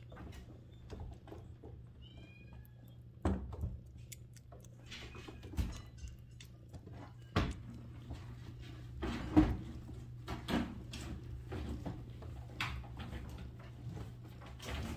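Week-old Sphynx and Bambino kittens squeaking briefly while nursing, amid rustling and irregular soft knocks, the loudest a little over nine seconds in.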